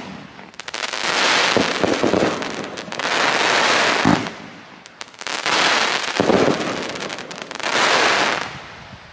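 Pyrocentury 'Mad Dog' 25-shot fireworks battery firing volleys of crackling shells: dull launch thumps, each followed by a long dense crackling as the tails burst into crackling clouds, about every two seconds. The crackling fades out near the end as the battery finishes.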